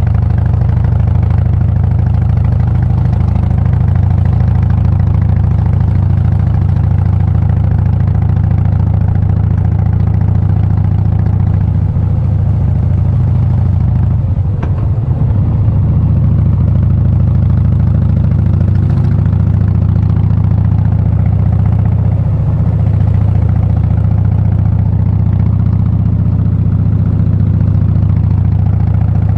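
Harley-Davidson Breakout's V-twin engine running steadily under way at low speed. About halfway through, the engine note breaks up and dips briefly, then settles back to a steady run.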